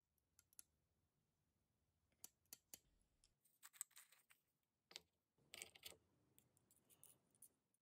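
Faint light clicks of small metal tools being handled, then two short spells of small metal rods and rings clinking and rattling against each other in a wooden bowl as they are stirred with the fingers and picked at with pliers.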